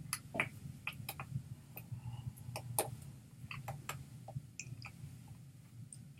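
Irregular small clicks and smacks, the mouth and hand noises of a person signing in American Sign Language, over a low steady hum.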